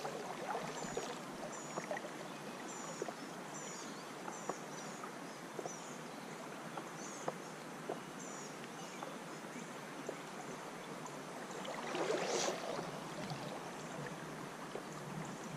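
Creek water rushing steadily over a shallow riffle. A bird gives short high chirps over and over in the first half, and there is a brief louder rush of noise about twelve seconds in.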